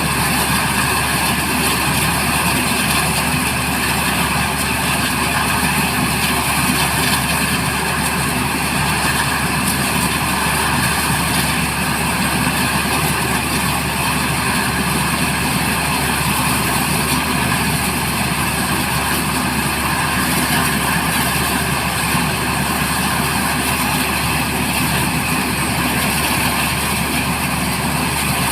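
Black Hawk helicopter running with a steady engine drone that does not change.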